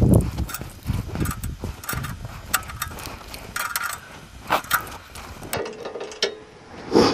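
Scattered, irregular metal clicks and clinks as a stick-welding electrode holder and rod are handled and set against a steel plate, with no steady arc running.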